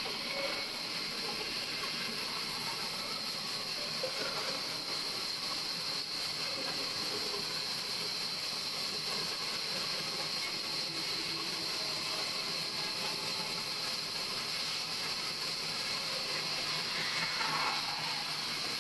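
Sawmill blade cutting through an old wooden beam: a steady, even hiss of the saw in the wood. A brief falling squeal comes near the end.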